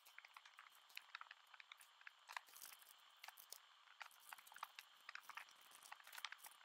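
Faint, dense crackling and ticking of small plastic zip bags and diamond-painting drills being handled over a plastic storage case.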